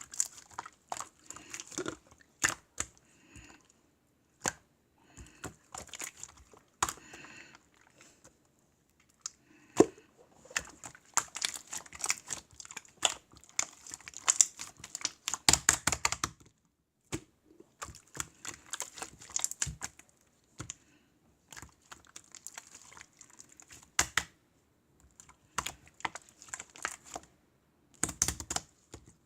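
Bursts of quick, irregular clicks and taps, separated by short pauses.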